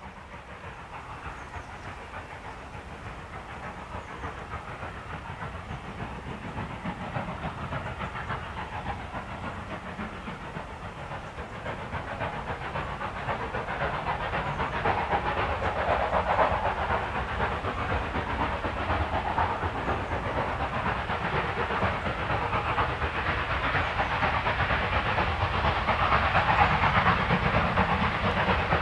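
Industrial saddle tank steam locomotive hauling a train of coaches, its exhaust chuffing rapidly and steadily and growing louder as it approaches.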